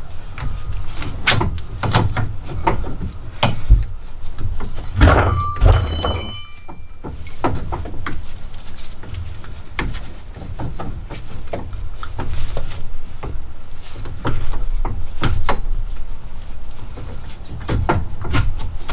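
Irregular metal knocks and clunks as a UTV's CV axle and steering knuckle are worked back into place by hand, with a brief ringing clang about six seconds in.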